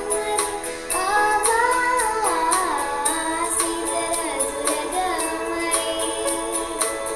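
A girl singing a Christmas carol, her melody gliding between held notes, over backing music with a steady ticking high percussion beat.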